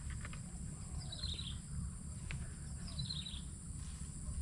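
A bird repeating a short high chirping call twice, about two seconds apart, over a steady low rumble.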